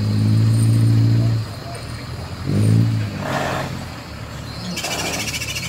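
Toyota Land Cruiser hardtop's engine pulling hard under load on a steep muddy climb. It eases off after about a second and a half, then gives one short rev a second later. A steady high buzz comes in near the end.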